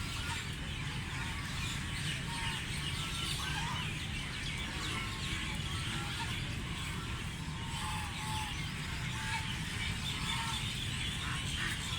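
Ducks calling while they feed at a pond: a busy scatter of short calls and high chirps, over a steady low rumble.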